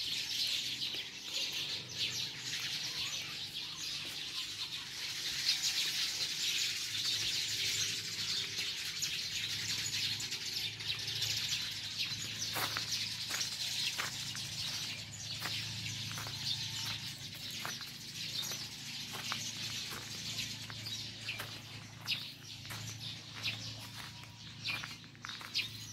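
Many birds chirping at once, a dense chorus of short, high calls that thins out in the second half. From about halfway, footsteps on a path tick through it.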